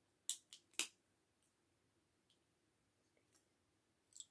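Small plastic LEGO bricks clicking as pieces are pressed together: three sharp clicks close together within the first second, then a few faint clicks and a short cluster of clicks near the end as loose pieces are picked out of the pile.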